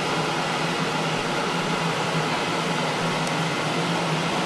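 Steady mechanical hum with an even fan-like rush from the running machinery of a cinema projection box, a 35 mm film projector and its ventilation.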